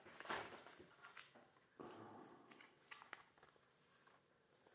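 Faint rustling and crinkling of plastic nine-pocket trading-card sleeve pages being handled, in a few short rustles with quiet between them.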